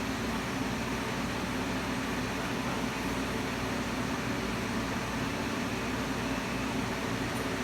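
Steady hiss with a low hum, even and unchanging, like a fan or air conditioner running.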